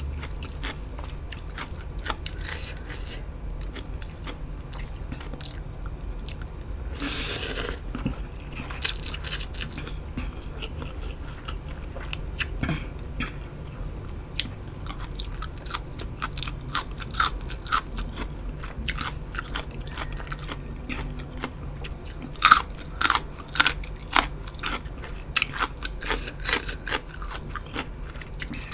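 Close-up chewing and biting of crunchy food, with many sharp crackling crunches. There is a short rushing noise about seven seconds in, and a louder run of crisp crunches near the end.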